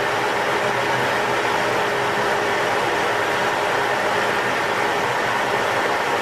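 Steady in-flight cockpit noise of the Boeing T-X jet trainer: an even rush of air and engine noise from its single GE F404 turbofan, heard inside the closed canopy, with a faint steady hum under the hiss.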